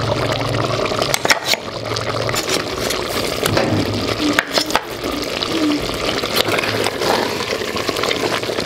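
Food sizzling and bubbling as it cooks with super-heated stones: a steady hiss with a few sharp clicks. A low hum sounds for the first couple of seconds.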